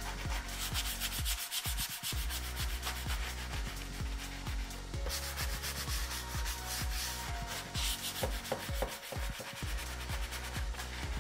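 Hand sanding of a varnished wooden cabinet door with an abrasive sanding square: quick back-and-forth scrubbing strokes, with a couple of brief pauses. The sanding scuffs the varnish to key the surface before primer.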